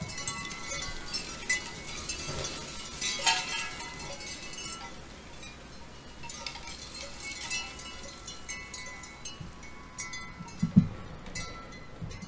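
A neighbour's wind chimes ringing irregularly: several notes of different pitch strike, overlap and fade out.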